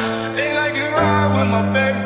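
Background hip-hop/R&B song with sustained chords and a singing voice; the chord changes about a second in.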